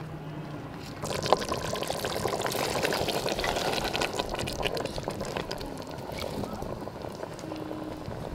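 Chopped green beans tipped from a bowl into a pot of simmering meat gravy, starting about a second in: a dense pattering of beans landing in the hot liquid, easing off after a few seconds.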